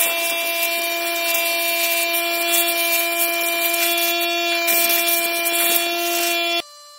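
An electric motor runs at a steady pitch under a loud rushing, scraping hiss. The sound stops abruptly near the end.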